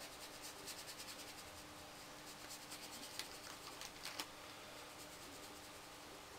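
Paintbrush bristles rubbing acrylic paint onto paper in quick, short scratchy strokes, in two runs that stop a little after four seconds in. A faint steady hum lies underneath.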